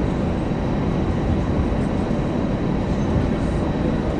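Airliner cabin noise while taxiing: a steady low rumble from the jet engines and the wheels rolling on the taxiway, with a faint high steady tone above it.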